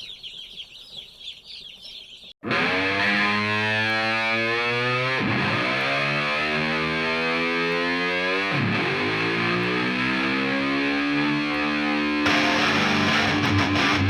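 Baby chicks peeping for about two seconds. Then a sudden cut to distorted electric guitar music, which carries on steadily and gets a little louder near the end.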